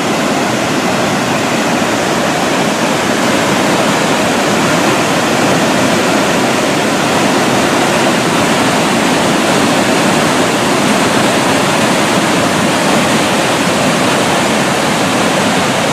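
Waterfall and river rapids close by: a loud, steady rush of falling water that does not change.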